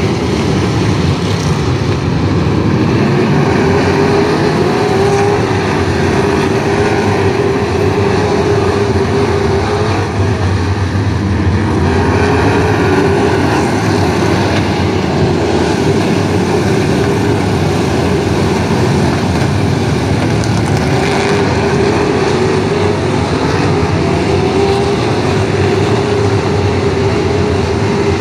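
A pack of figure-8 race cars running together on the track, their engines loud and continuous, with the pitch rising and falling as cars speed up and slow down.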